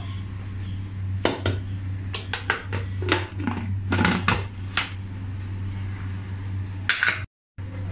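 Aluminium pressure cooker lid being put on and closed over the pot: a series of separate metal clinks and knocks over a steady low hum.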